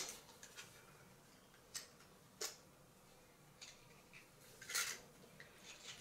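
Faint, scattered clicks and a short scrape of a manual coffee grinder being handled and its parts tried.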